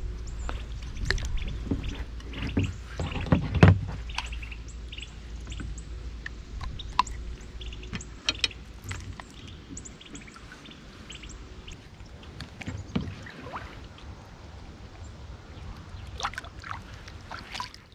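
Handling noises in a kayak as a rockfish is unhooked in a landing net and let go over the side: scattered clicks and knocks, the loudest a low thump about three and a half seconds in. A low steady rumble fades after the first few seconds.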